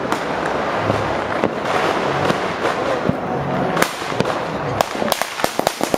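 Many firecrackers and fireworks going off at once: a dense, continuous crackle with sharp bangs. The bangs stand out more separately from about four seconds in.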